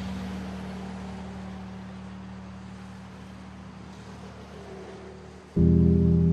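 Background film score: a low sustained drone slowly fading, then a louder held chord entering abruptly near the end.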